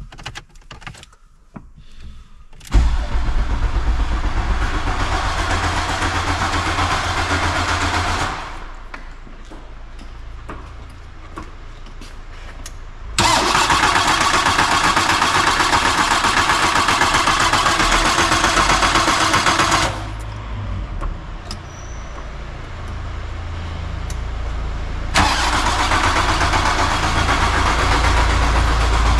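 A few clicks, then the starter motor of a carburetted SEAT Toledo mk1 1.6 cranks the engine in three long bursts of several seconds each, with pauses between. The engine is reluctant to start: the car has been stored, its automatic choke is set by pumping the throttle, and the weak battery is helped by a jump starter.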